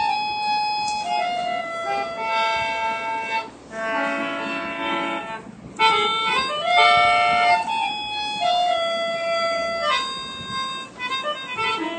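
A free-reed instrument plays a melody in steady held notes that step from one pitch to the next, with a fuller chord held about four seconds in.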